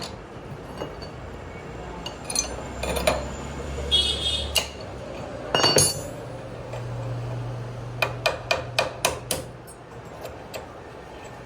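Scattered clinks and knocks of hard objects, with a quick run of about six sharp taps late on, over a faint low hum.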